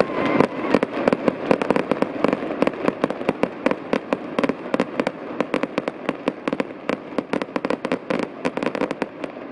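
Aerial fireworks bursting in quick succession: a dense, rapid run of sharp bangs and crackles, many a second, from white glittering crackle shells.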